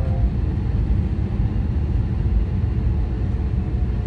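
Steady low rumble of cabin noise inside an Airbus A321 airliner as it is pushed back from the gate.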